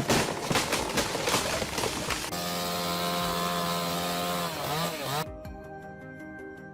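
Chainsaw running: rough cutting noise with crackling for about two seconds, then a steady engine tone whose pitch dips and comes back up near five seconds. It cuts off abruptly to a quieter passage with a fast, even ticking.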